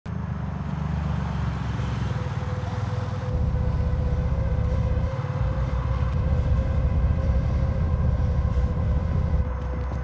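Low, steady rumble of a moving vehicle, with a faint held tone above it; the rumble grows louder about three seconds in.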